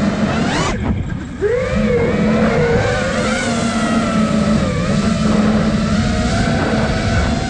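iFlight Nazgul Evoque 5-inch FPV freestyle quadcopter in flight, its brushless motors and propellers whining with a pitch that rises and falls with the throttle. The pitch drops sharply about a second in and climbs back within half a second, then wavers up and down as the drone cruises.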